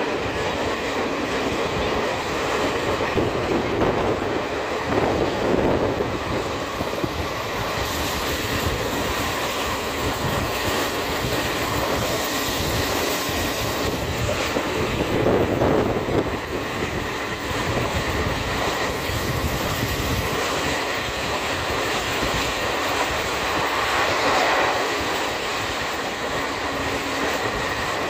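Passenger train running at speed, heard from an open door or window of a coach: a steady rumble and rattle of wheels on the track, swelling louder a few times.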